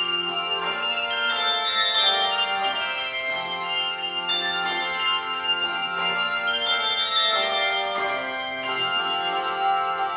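Handbell choir ringing chords in a steady pulse, several bells struck together on each beat and left to ring so that the tones overlap.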